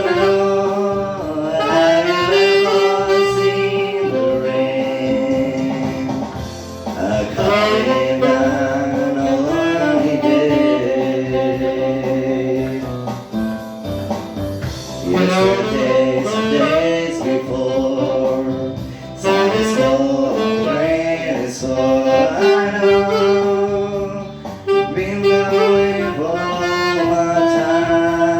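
Saxophone playing a melodic line of long held notes over a backing band.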